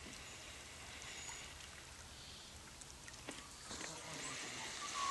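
Faint outdoor ambience: a steady hiss with a few faint chirps and small clicks.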